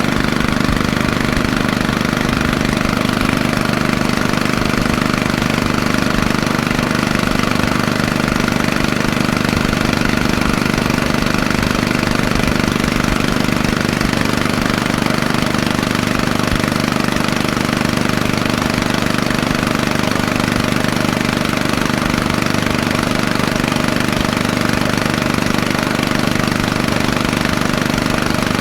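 Diesel engine of an engine-driven air compressor running steadily at an even speed, on a newly replaced injection pump head.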